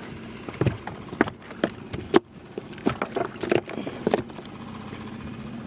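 A run of irregular knocks and clatters as a freshly landed sierra mackerel is handled in the boat, over a steady low hum.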